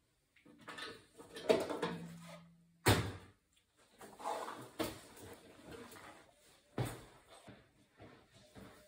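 Clunks and knocks of tools and metal parts being handled at an opened boiler casing: about four sharp knocks spread through, with rustling and scraping between them.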